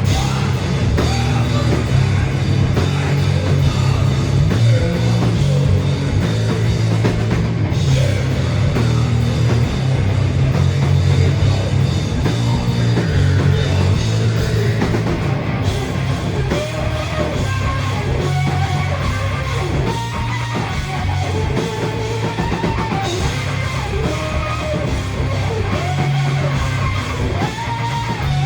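A heavy rock band playing live at full volume: distorted electric guitars and bass over a drum kit, with a wavering melodic line coming in about halfway through.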